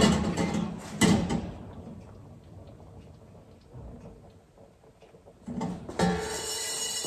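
A small steel pan of whole peppercorns and cloves shaken and slid on a gas hob's metal grate while they toast, scraping and rattling at the start and again about a second in. Faint ticks follow, then another scrape near the end as background music with held tones comes in.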